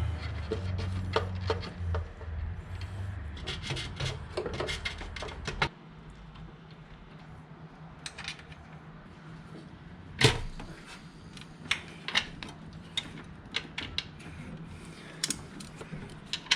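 Scattered clicks, clinks and knocks of metal parts and hand tools being handled while an intake manifold and its gasket are fitted onto the engine. A low hum runs underneath and stops suddenly about five and a half seconds in.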